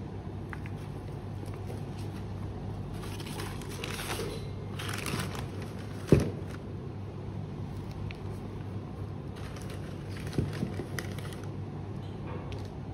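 Paper stuffing and tissue paper rustling and crinkling as they are handled, in two spells. About six seconds in there is a sharp thump as a sneaker is set down in its cardboard box, and a lighter knock comes a few seconds later, over a steady low hum.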